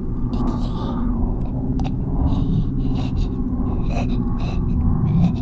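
Loud, steady low drone of sound-design rumble, with scattered clicks and crackles over it.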